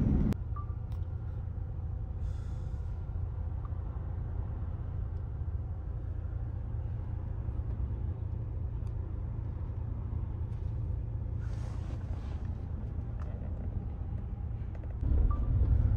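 Steady low rumble of a car driving, heard from inside the cabin, with a soft hiss twice.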